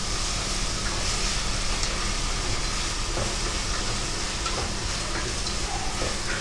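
Chopped onions and tomatoes frying in sesame oil in an open pressure cooker, a steady sizzle with a few faint clicks from stirring.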